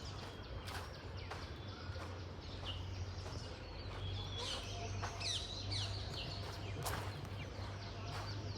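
Birds chirping and calling in short, scattered phrases that glide in pitch, over a steady low hum, with a few sharp clicks.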